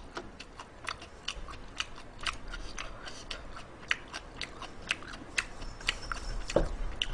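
Close-miked chewing: an irregular run of small wet clicks and crackles, a few a second.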